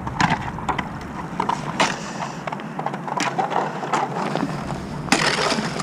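Thin ice cracking and crunching as a stand-up paddleboard and its paddle break through it: a string of irregular sharp cracks and scrapes, with a longer, denser burst of crackling about five seconds in.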